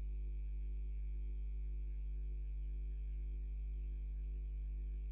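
Steady low electrical hum with a row of faint higher overtones and a light hiss, unchanging throughout.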